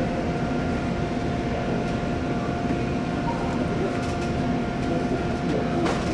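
Steady mechanical drone of running machinery with a constant faint whine through it.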